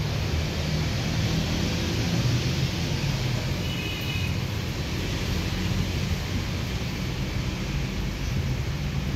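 Steady wind buffeting the phone's microphone: a low rumble under an even hiss, with a faint brief high tone about four seconds in.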